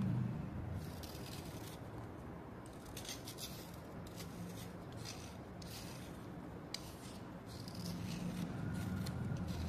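A small metal blade scraping along a damp slate chip, shaving off curls of slate in short, irregular strokes.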